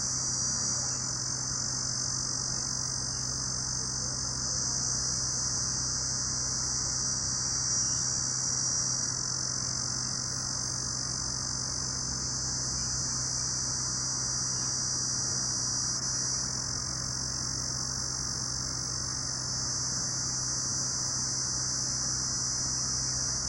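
A dense, unbroken chorus of night insects trilling high-pitched and steady, with a faint low hum underneath.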